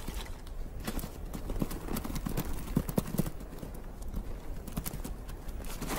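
Bharal hooves clattering on a steep rocky, snowy slope, an irregular patter of hard knocks as the animals move and chase.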